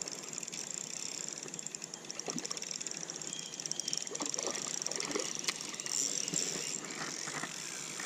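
Spinning reel being cranked to wind in line, a fast fine ticking whir, with a few soft knocks.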